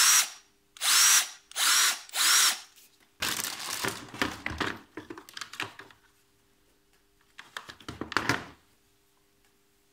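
Bosch GSR 18-2-Li Plus 18 V cordless drill driver run in four short trigger pulls, each a brief whine that rises and falls as the motor spins up and stops. Then hard plastic knocks and rattles come as the drill is laid into its carrying case, with a second bout of knocks near the end.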